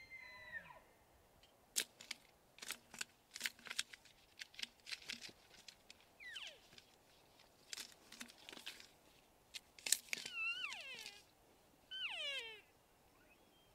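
Bull elk in brush: a run of sharp twig and branch cracks, then two bugles near the end, each a high whistle that falls away into lower grunting notes.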